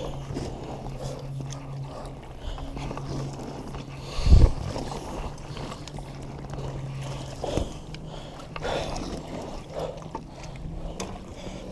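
An inflatable kayak being paddled through reeds: paddle strokes in the water and rustling and knocking against the vinyl hull, with two heavy thumps, one about four seconds in and one about seven and a half seconds in.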